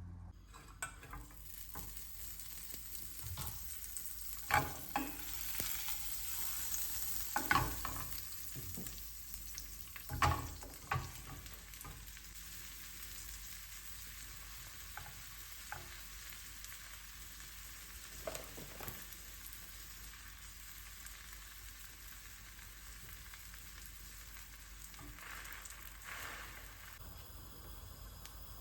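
Food frying in a pan with a steady sizzle, and several sharp knocks of a utensil against the pan in the first half.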